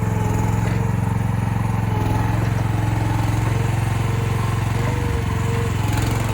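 Mini excavator's small engine running steadily, with a steady whine held over the engine note as the machine is driven to another spot.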